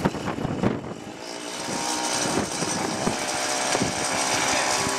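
Small petrol engine of a child's go-kart running, uneven with sharp pops in the first second, then settling into a steady drone.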